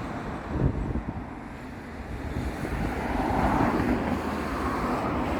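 Road traffic on a busy road: vehicles rumbling past, one swelling in loudness to a peak about three and a half seconds in, with wind buffeting the microphone.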